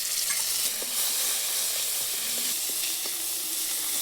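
Food frying in hot oil in a pan: a steady, loud sizzle.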